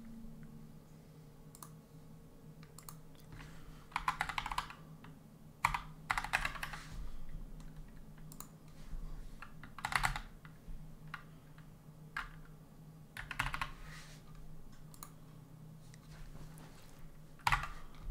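Typing on a computer keyboard in several short bursts of keystrokes with pauses between them, over a faint low hum.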